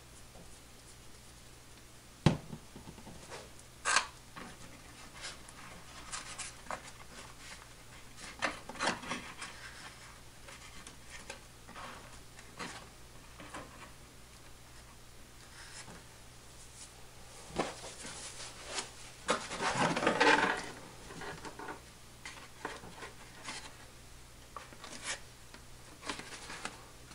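Handling noise from a foam model airplane being worked on by hand on a workbench: scattered light knocks and taps with rubbing against the foam. There is a sharp knock about two seconds in and a longer stretch of rubbing and scraping about twenty seconds in.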